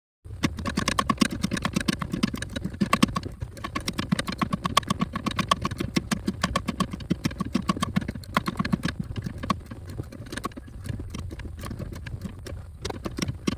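Hand ratchet clicking rapidly and steadily as it backs out long, hard-to-reach brake booster mounting nuts, louder in the first part and quieter for the last few seconds.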